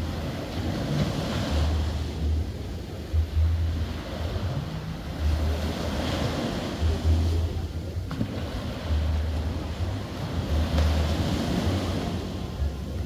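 Sea waves washing onto a sandy beach, the surf swelling and fading every few seconds, with wind buffeting the microphone as a gusty low rumble.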